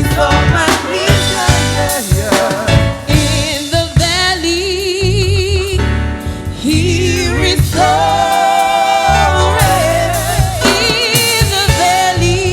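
Gospel song: a singer holds long, wavering notes over a band with a steady bass and drum beat.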